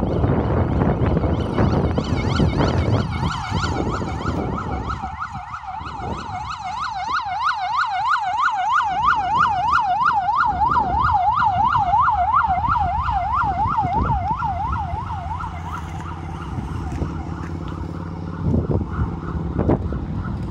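Vehicle siren in a fast yelp, its pitch rising and falling a few times a second. It comes in about two seconds in over wind noise on the microphone and dies away after about sixteen seconds, leaving a steady engine hum.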